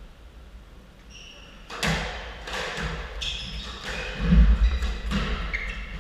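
A squash ball bouncing with knocks and thuds on the wooden court floor, the loudest about four seconds in. Between them come a few short, high squeaks of court shoes on the floor.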